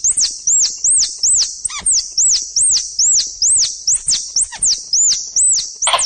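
Squirrel lure recording of plantain squirrel (bajing kelapa) calls: a fast, even series of high chirps, each rising then falling, about three a second, ending in a short noisy chatter.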